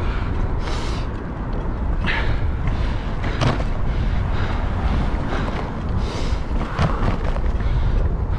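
Wind buffeting a bike-mounted camera's microphone while riding, a dense steady rumble with a few short gusts or puffs on top.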